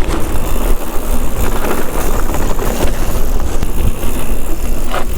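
Commencal Meta HT hardtail mountain bike rolling fast down a trail: steady rumble of its wide 27.5 x 2.8 tyres on the dirt, with wind noise on the microphone and the odd click of the bike rattling.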